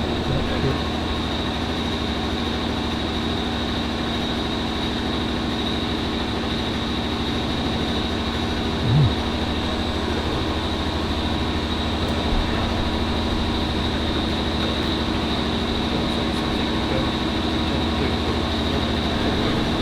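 Steady mechanical hum and hiss with a thin high whine held throughout, and a brief louder low sound about nine seconds in.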